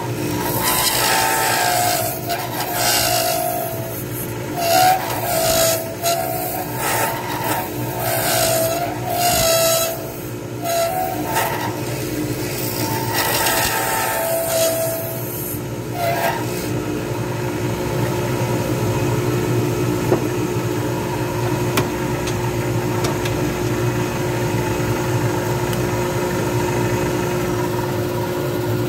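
Resin pen blank spinning on a lathe while a hand-held turning tool cuts it in a series of scraping passes, with a wavering whistle-like tone during the cuts. About two-thirds of the way through the cutting stops and only the lathe's steady motor hum remains.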